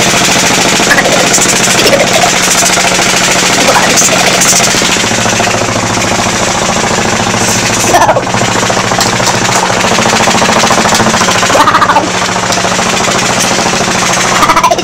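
High-frequency chest wall oscillation ('beating') vest running: its air pulse generator shakes the vest in a rapid, steady pulsing over a steady hum, the airway clearance treatment for cystic fibrosis.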